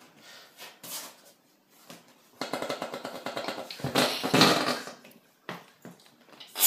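A whoopee cushion being sat on, letting out one long buzzing fart noise of about two and a half seconds, after a few soft knocks and rustles.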